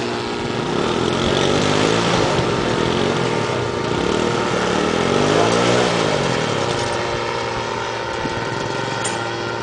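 Engine and propeller of an autogyro flying overhead: a continuous buzzing drone whose pitch swings up and then back down about four to six seconds in.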